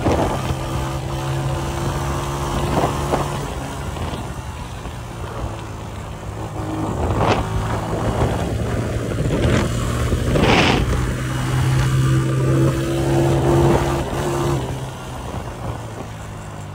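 Honda CG 125's single-cylinder four-stroke engine running through a Goshi aftermarket silencer while the bike is ridden in second gear with the throttle opened. The exhaust note holds steady and grows louder through the middle stretch.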